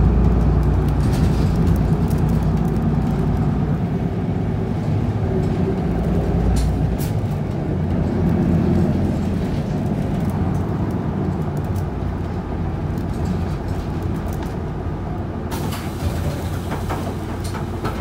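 Isuzu Erga city bus heard from inside the passenger cabin: its 6HK1 inline-six diesel running as the bus drives along, the engine note shifting as it changes speed, over steady tyre and road noise. Now and then a plastic bag rustles close by.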